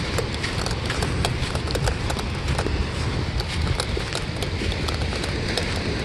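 Footsteps in dry sand, about two steps a second, with wind rumbling on the microphone.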